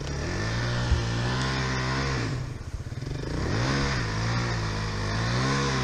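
Enduro dirt bike engine running with the revs held fairly steady. About halfway through the revs ease off and then pick back up.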